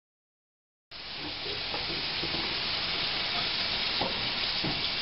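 Dead silence for about a second, then a steady hiss starts abruptly and runs on evenly.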